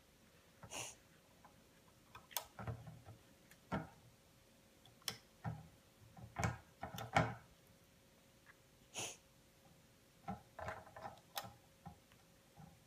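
Irregular small plastic clicks, taps and rustles of rubber bands being hooked and looped on a plastic Rainbow Loom, with a few soft breathy sniffs.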